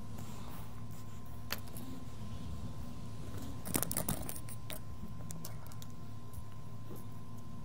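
Small metal tools and objects being handled on a workbench: a sharp click, then a quick clatter of clicks and rattles about four seconds in, followed by a few lighter clicks. A steady low electrical hum runs underneath.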